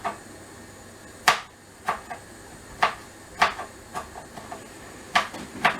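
Kitchen knife chopping garlic on a cutting board: irregular sharp knocks, roughly one a second with a few lighter taps between, over a faint steady hiss.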